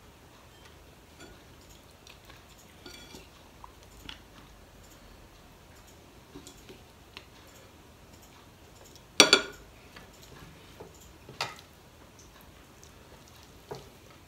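Quiet eating sounds at a table, small ticks of fingers and food on plates and chewing, broken by a sharp clatter of a spoon against a plate about nine seconds in, a smaller clink about two seconds later and a light one near the end.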